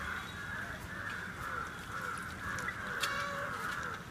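Birds calling over and over in a steady chorus, with a brief click about three seconds in.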